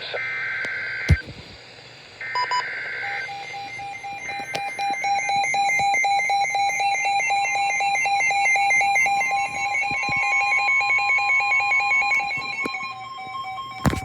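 Emergency Alert System signal: two short bursts of the SAME header's screechy warbling data tones, then the EAS attention tone sounding for about ten seconds with a second, rapidly pulsing alert tone overlapping it. There is a sharp click about a second in and another just before the end.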